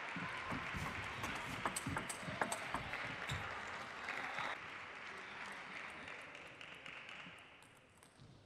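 Spectator applause after a point in a table tennis match, with a few sharp clicks in it, dying away over the second half.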